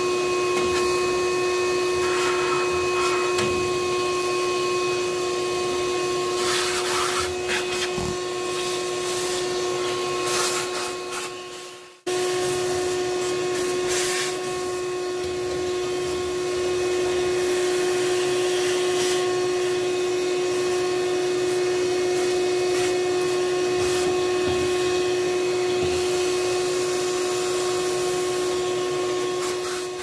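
Wet/dry vacuum running with a steady motor whine and hiss. Its brush nozzle sucks dust from a gas furnace's burners and manifold, with occasional short rattles against the metal. The sound drops out briefly about twelve seconds in, then runs on.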